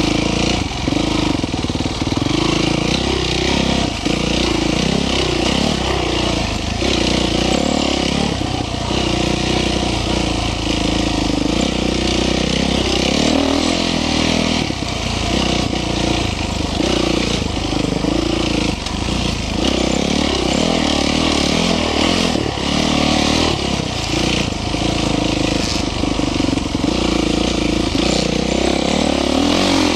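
Dirt bike engine revving up and down over and over as it is ridden.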